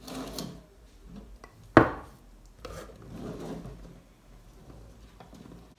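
Hands handling a hanging planter and its wire hanger among pothos leaves: rubbing and scraping, with one sharp knock a little under two seconds in.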